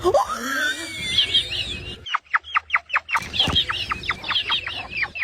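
A person imitating a chicken: a rising squeal, then two quick runs of short, falling, chicken-like clucks at about six a second.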